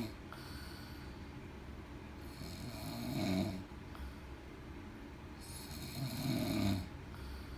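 A man snoring loudly in deep sleep: two long snores about three seconds apart, with quieter stretches between them.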